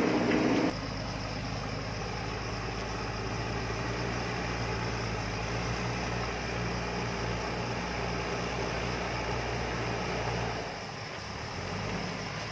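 JCB backhoe loader's diesel engine running steadily. A louder engine passage cuts off abruptly within the first second, and the engine note dips briefly near the end.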